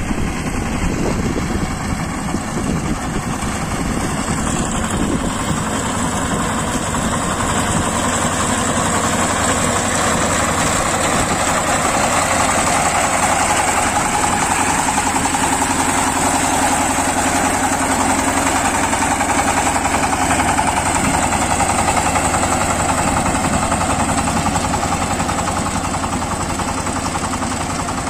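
Mega T power tiller's engine running steadily while its front reaper attachment cuts standing paddy, getting a little louder as the machine comes nearer about halfway through.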